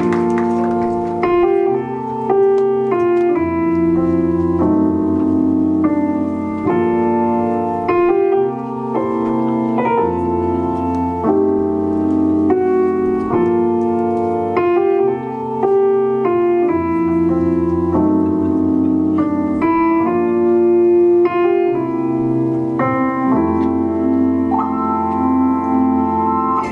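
Piano playing the song's introduction: sustained chords that change every second or two, with no singing yet.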